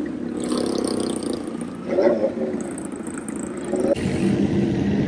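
Motorcycle engines running in slow traffic, rising briefly in pitch about two seconds in and again near four seconds.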